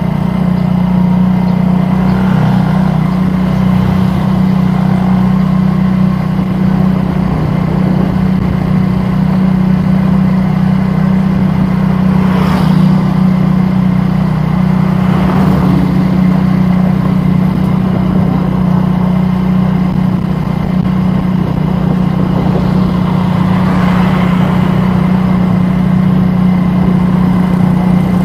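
A motor vehicle's engine running steadily with a constant low hum, with a few brief passes of other traffic partway through.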